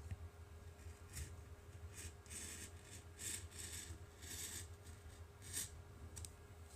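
Box cutter blade slicing into a thin cardboard rocket body tube: a series of short, faint scraping strokes as a fin slot is cut.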